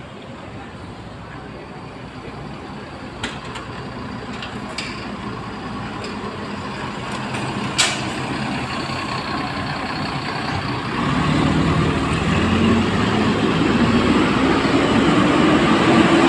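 Large diesel bus engine growing steadily louder as the bus draws near, its pitch climbing over the last few seconds as it pulls away under power. A few short sharp sounds come earlier, the clearest about eight seconds in.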